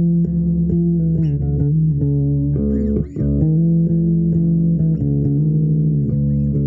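Improvised instrumental music: sustained low droning notes that shift in pitch every second or so, with a brief drop-out about three seconds in.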